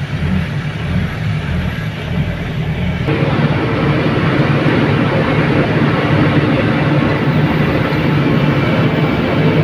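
A truck's engine running steadily under load as it climbs, heard from inside the cab as a continuous low rumble with road noise. About three seconds in, the sound grows fuller and a little louder, with a steady hum added.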